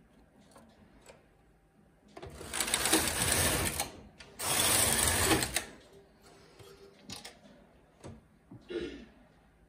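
Knitting machine carriage pushed across the needle bed twice, back and forth, each pass a long noisy swish lasting over a second with a short break between them, knitting two rows of double-bed jacquard.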